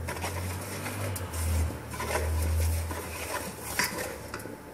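A spoon scraping and clinking against a metal pan while stirring flour into melted butter for a béchamel roux. A low rumble sits underneath for the first three seconds.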